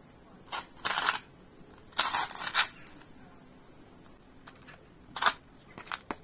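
A metal spoon scraping and scooping a gritty mix of soil, sand and perlite out of a plastic tray and tipping it into a clear plastic cup. There are short scrapes and rattles around one and two seconds in, a pause, then two more near the end.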